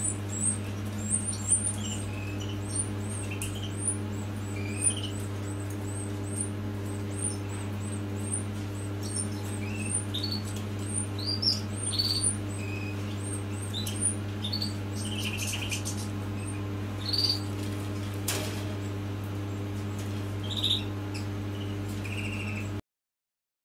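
Finch nestlings begging with rapid, high-pitched cheeps while an adult feeds them, with a few lower calls scattered through, over a steady electrical hum. The sound cuts off suddenly near the end.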